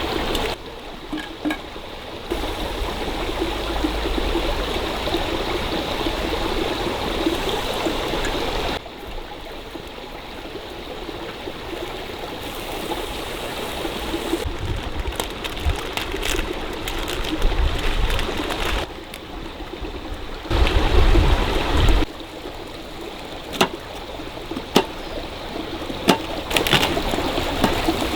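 Stream water flowing and trickling steadily, its level jumping abruptly several times. A short low rumble comes about two thirds of the way in, and a few sharp clicks or knocks follow near the end.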